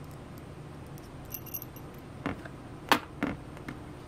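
Small hard plastic parts and a precision screwdriver handled in the fingers: a few faint ticks, then three sharper clicks in the second half, the middle one the loudest, over a steady low hum.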